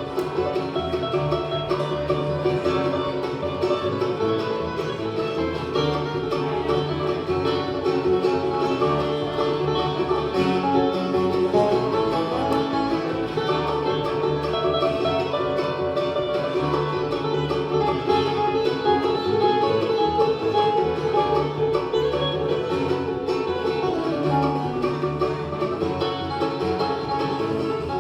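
Live bluegrass band playing a song, with steady, continuous string-band music.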